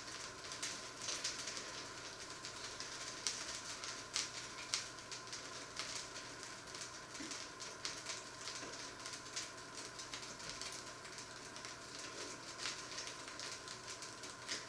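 Fat sizzling and crackling in a frying pan, with irregular sharp pops, over a faint steady hum.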